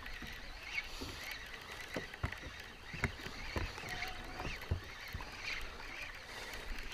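Small waves lapping against a fishing boat's hull: a run of irregular light slaps and knocks over a soft wash of water.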